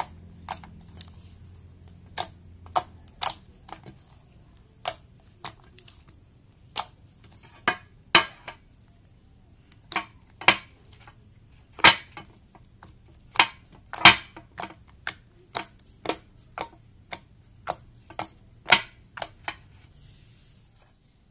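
Sharp wet pops and clicks as hands knead and press a sticky, air-filled slime, squeezing out trapped air pockets, one or two a second at an irregular pace. The clicks stop near the end.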